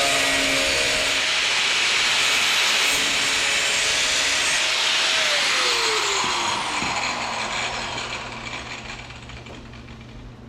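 Cutoff wheel cutting through sheet-metal door skin with a steady whine and gritty hiss. The wheel winds down with a falling whine about six seconds in.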